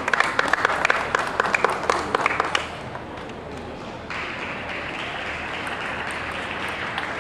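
A few spectators clapping between points in a table tennis match, the claps dying out about two and a half seconds in. After that a steady hall din.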